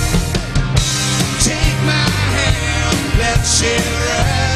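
Live rock band playing, with drums, bass and guitar, and a woman singing lead into a handheld microphone.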